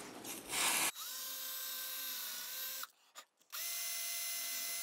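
Cordless drill running twice as it bores through a plastic strip on a wooden piece: a steady motor whine for about two seconds, a short stop, then a second, shorter run. A brief rustle comes just before the first run.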